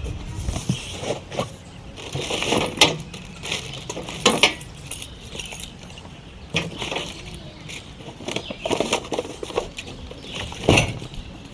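Metal parts of a two-burner gas camp stove being unpacked and handled: scattered clicks, knocks and clatter with rustling between them.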